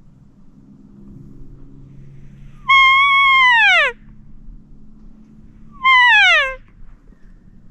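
Two loud cow-elk mews, whistle-like calls that hold a steady pitch and then slide downward. The first lasts about a second. The second is shorter and comes about three seconds later.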